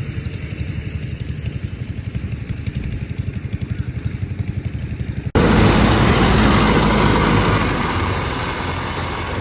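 Farm machine engine running with an even, rapid chug; about five seconds in, the sound cuts abruptly to a much louder, rougher engine that slowly eases off.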